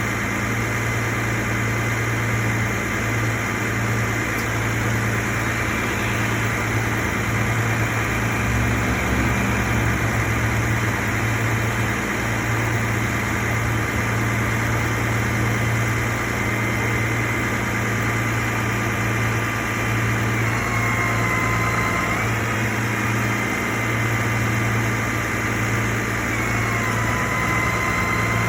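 Car engine idling steadily, a constant low hum with an even wash of noise over it.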